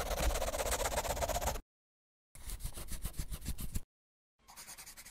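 Pencil-on-paper scribbling sound effect in three short bursts with dead silence between them, the last one fainter.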